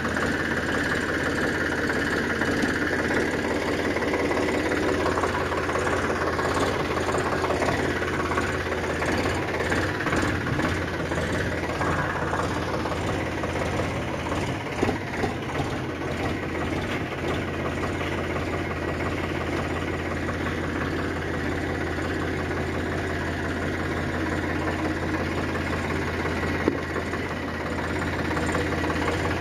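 A steady engine-like drone that runs throughout, with a few brief clicks around the middle and one near the end.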